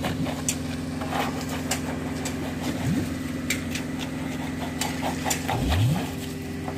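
Engine of a concrete pump running steadily while concrete is pumped through the pipeline, with scattered clicks and knocks. The engine revs up briefly about two-thirds of the way through.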